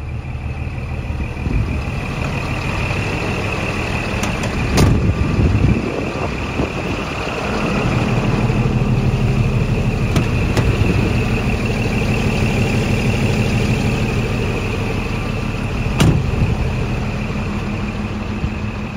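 Scania G420 truck's six-cylinder diesel engine idling steadily, with a steady high whine alongside. A few knocks and handling noises come about five seconds in, and the engine sounds louder from about eight seconds on.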